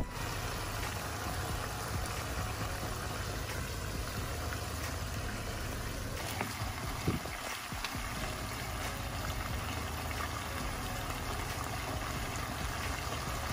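Squid adobo simmering in a nonstick wok: its sauce bubbles steadily over a low, even hum, with a single knock about seven seconds in.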